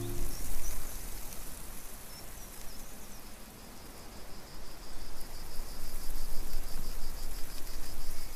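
Outdoor ambience: a steady hiss of noise with an insect chirping in a fast, even high-pitched pulse from about three seconds in.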